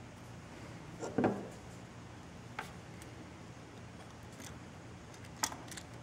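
Quiet handling sounds of a plastic crimp-cut-strip network tool being picked up and the cable's wires fed into its jaws: a short clatter about a second in, then a few light clicks.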